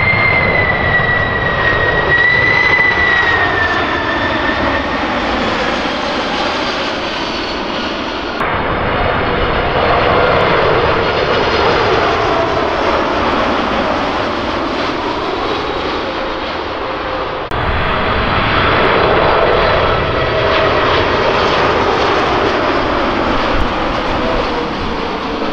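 Three wide-body jet airliners on landing approach pass low overhead one after another: a Lufthansa Cargo MD-11 freighter, then a Nippon Cargo Boeing 747-8 freighter, then a Lufthansa Boeing 747-8. Each is a steady jet-engine whine and rumble whose whistling pitch slowly falls as it goes by. The sound cuts abruptly from one plane to the next about a third and two thirds of the way through.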